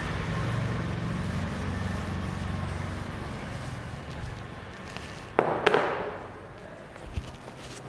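Chalkboard duster wiping chalk off a board in repeated rubbing strokes, fading out over the first few seconds. About five and a half seconds in comes a single sharp knock with a short scrape, then a faint click.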